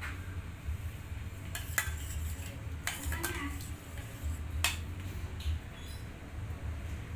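Spoon clinking and tapping several times against a glass dish while thick coconut cream topping is spread over sticky rice. A steady low hum runs underneath.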